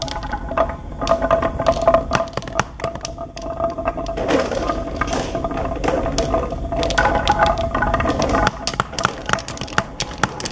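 Glass marbles rolling along the grooves of a carved wooden zigzag marble run, with many quick, irregular clicks and clacks as they knock against the wood and drop onto the pile of marbles in a plastic toy dump truck's bed, over a steady ringing hum.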